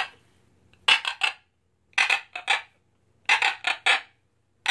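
Scarlet macaw making short, raspy vocal bursts in three groups of three or four, with short silences between the groups.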